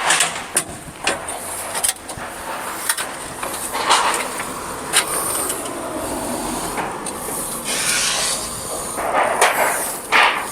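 Roofing work noise: irregular knocks and clatter, like roof tiles being handled, over a steady rushing noise, with louder swells of noise around four seconds in and near the end.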